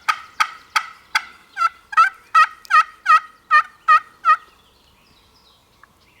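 Turkey calling close by: a quick run of sharp clucks (cutting) that turns into a series of about eight yelps, each about a third of a second apart, stopping about four and a half seconds in.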